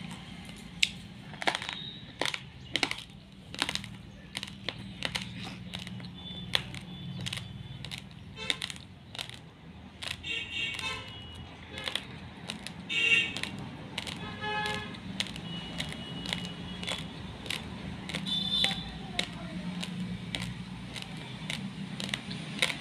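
Raw basmati rice grains crunched between the teeth: a sharp crunch every half second to a second, over a low steady hum. A few short pitched sounds in the background around the middle.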